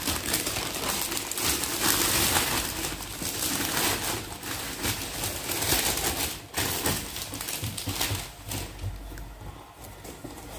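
Gift wrapping paper being ripped and crumpled off a cardboard box, a dense crackling rustle. It eases off in the last few seconds as the box lid is lifted.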